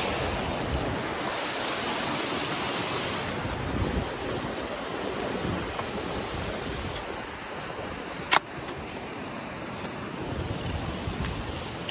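A glacial mountain stream rushes over rocks, easing somewhat after about three seconds. A single sharp click comes about eight seconds in.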